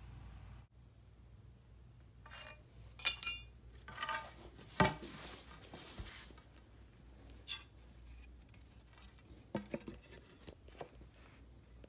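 Tools being handled and set down on a hard floor: a loud pair of ringing metallic clinks about three seconds in, a knock near five seconds, then a few light clicks near the end.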